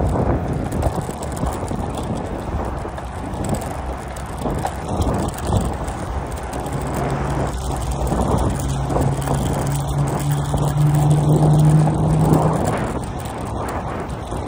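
Wind buffeting the microphone and tyre noise from a bicycle being ridden along a paved path. About halfway through, a steady low hum rises slightly in pitch for several seconds, then stops.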